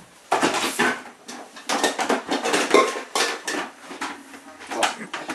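Irregular clattering knocks and scrapes of household items being handled as a plastic bucket is fetched and carried.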